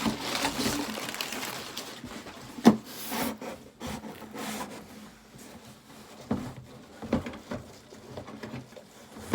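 Tissue paper rustling as it is handled and pulled out of a box, followed by scattered knocks and taps from items being moved around. A sharp knock about two and a half seconds in is the loudest sound.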